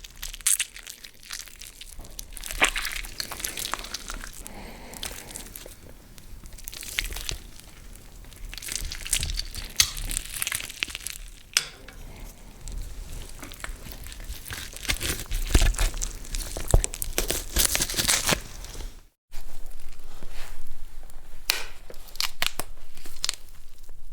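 Gory sound effect of a hand squelching and digging through wet guts: irregular wet crinkling, tearing and crunching. After a short break about 19 seconds in, a leg-bone-break effect begins with sharp cracks and crunches.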